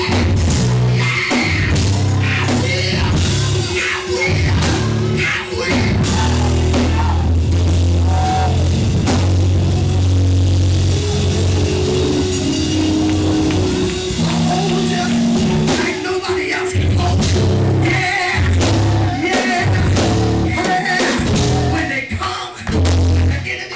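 Live church band playing loud, driving music with drum kit and a heavy bass line, with voices singing or shouting over it.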